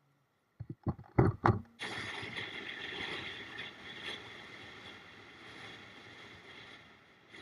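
A few loud knocks in quick succession, then a steady rushing noise that starts abruptly and slowly fades.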